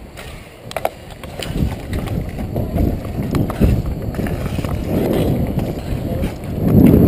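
Roller-hockey skate wheels rolling and striding over a sport-court rink surface, with a stick pushing a puck along and wind rumbling on the body-worn microphone. The noise grows louder near the end as the skater speeds up.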